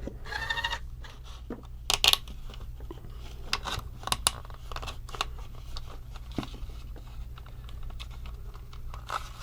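Small plastic parts and wiring being handled: a run of light clicks and rattles, with a sharper pair of clicks about two seconds in, over a steady low hum.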